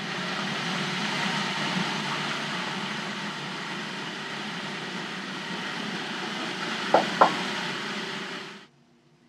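Cuisinart food processor motor running steadily as it purées roasted cauliflower and cannellini beans with broth. Two sharp knocks come about seven seconds in, and the motor cuts off suddenly shortly after.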